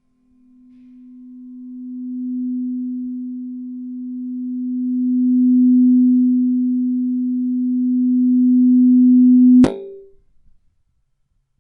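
Microphone feedback: a single low steady tone that swells louder, eases and swells again for about nine seconds, then cuts off suddenly with a click.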